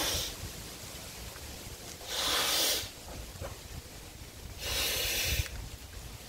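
A man's breathing as he blows up a 35-inch latex balloon by mouth: a loud rush of breath about every two and a half seconds, with quieter spells between while he blows air into the balloon.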